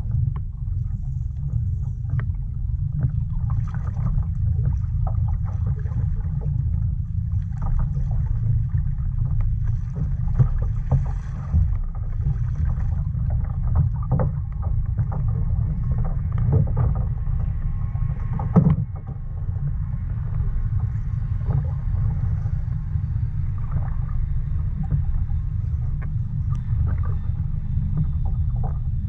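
Small waves lapping and slapping against a fishing kayak's hull, with scattered light knocks and one sharper knock about two-thirds of the way through, over a steady low rumble.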